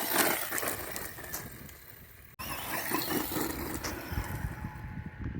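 HBX 903A electric RC truck driving at speed, its motor and tyres running over the ground, loudest right at the start. The sound cuts off abruptly a little over two seconds in and then the driving sound starts again.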